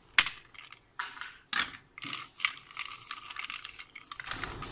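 Ice cubes clicking and knocking against each other as a hand picks through them on a plate: a string of sharp, irregular clicks about half a second apart.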